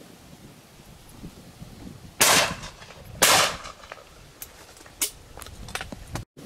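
Two shotgun shots about a second apart, each with a short ringing tail, followed by a few fainter clicks. Wind rumbles on the microphone throughout.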